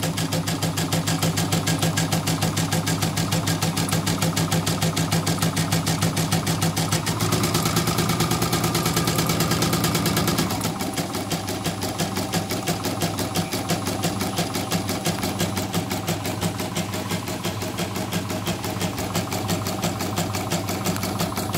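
CNY portable computerized embroidery machine stitching out a test design: a steady, fast, even clatter of needle strokes. About ten seconds in it gets a little quieter and the stroke pattern changes as the stitching moves on.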